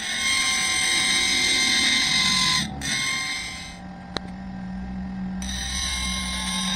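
Hacksaw cutting through an iron pipe: a scraping rasp with a steady metallic ring from the pipe. It eases off in the middle, with a single sharp tick, and picks up again near the end.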